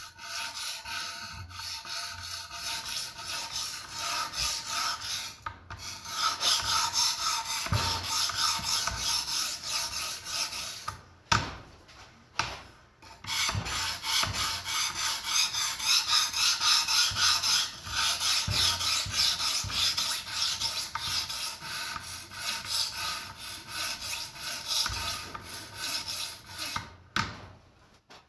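Coarse 250-grit Diamond Matrix stone on a guided clamp sharpener rasping along the steel edge of a vintage Wusthof chef's knife in rapid repeated strokes, with a short break about eleven seconds in. The coarse stone is raising a burr along the edge.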